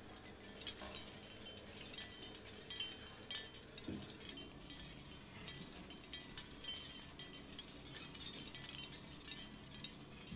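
Light clicks and soft metallic tinkling of tiny metal finger-bike parts being handled and fitted together by hand.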